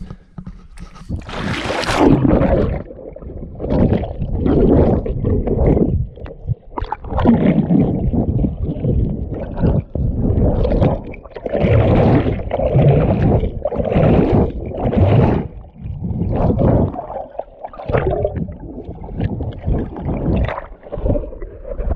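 Motorboat under way: a loud rushing of water and wind that surges and ebbs every second or so.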